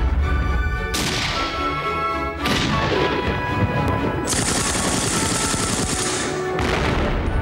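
Explosions and gunfire over music: several sudden blasts in turn, with a dense stretch of rapid submachine-gun fire in the middle.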